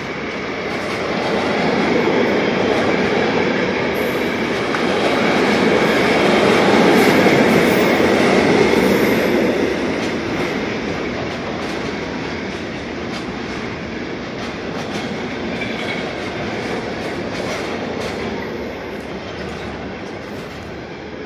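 Freight train of container and trailer wagons passing: steady rumble and rattle of wheels on the rails with repeated clicks, loudest about seven to nine seconds in and fading near the end as the last wagons go by.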